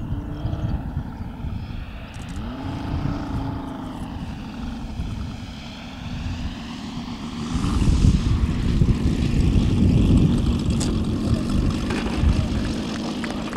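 Propeller and engine of a one-third-scale radio-controlled Mitsubishi A6M Zero on approach and landing, the pitch sliding up and down in the first few seconds and growing louder about eight seconds in as the model comes in, touches down and rolls out.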